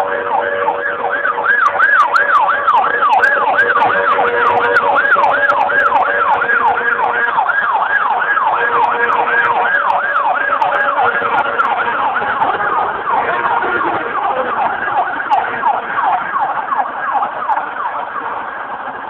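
Fire-rescue truck siren in a fast yelp, sweeping up and down a few times a second, the signal of a unit on an emergency run. A steady lower tone sounds alongside for the first several seconds, and the siren fades toward the end.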